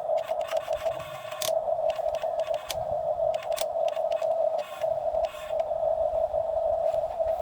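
Excavator at work: a steady droning whine with scattered knocks and scrapes over it.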